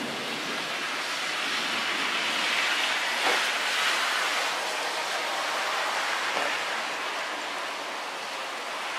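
Steady hiss of heavy rain during a night thunderstorm, swelling for a couple of seconds in the middle and then easing, with one short tap about three seconds in.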